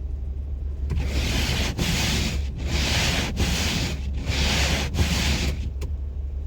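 Car windshield wipers sweeping back and forth across the glass: about six rubbing strokes, each a little under a second with a brief break at each turn, stopping a second before the end. A steady low hum of the idling car runs underneath.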